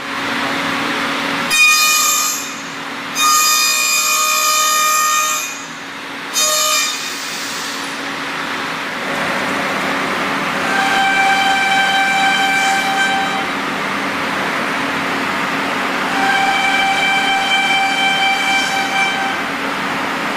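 C.R. Onsrud 5-axis gantry CNC router spindle running with a steady hum while its cutter machines fiberglass reinforced plastic. Three short high-pitched whines in the first few seconds, then two longer, steadier whines later on as the tool cuts.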